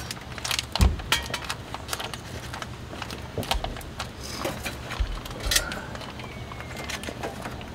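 An irregular string of sharp clicks, knocks and rattles of camping gear being handled.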